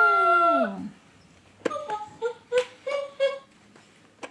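Electronic children's animal-sound toy playing a recorded dog sound that ends in a falling whine. After a short pause it plays a quick jingle of about six electronic notes.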